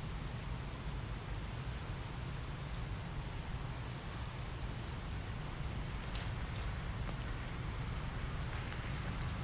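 Steady outdoor background noise: a low rumble under a thin, steady high drone, with one faint click about six seconds in.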